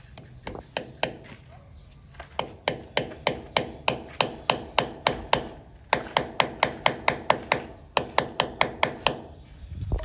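Hammer striking in quick, even runs of about four sharp blows a second, with short pauses between the runs.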